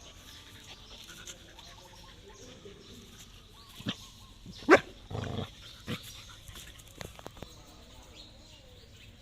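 A dog barking a few times in quick succession at a snake, with a short sharp bark about halfway in as the loudest.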